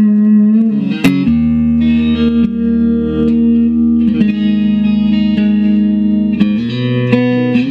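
1971 Fender Stratocaster electric guitar played through a Fender amp with no reverb. Chords are struck and left to ring, with a change about a second in, another about four seconds in and a third near the end.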